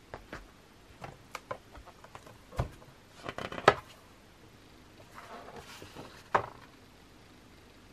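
A large hardcover photobook being handled: scattered taps, clicks and paper rustles as the cover and thick pages are turned. A dull thump comes about two and a half seconds in, the sharpest clicks follow about a second later, and a soft rustle near the end finishes in one sharp tap.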